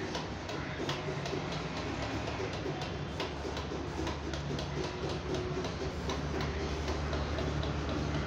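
A steady low hum under frequent small, irregular clicks and ticks.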